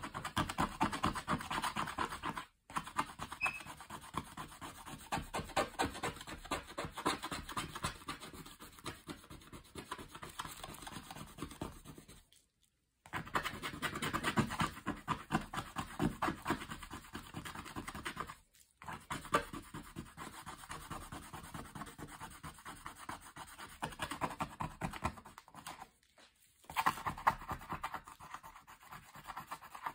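An eraser scrubbing quickly back and forth over the coated surface of a scratch-reveal activity page, rubbing off the coating. The rapid rubbing strokes come in stretches broken by a few brief silences.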